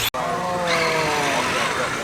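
Brushless electric motor of a large RC basher truck whining, its pitch falling as it winds down, after a brief dropout right at the start.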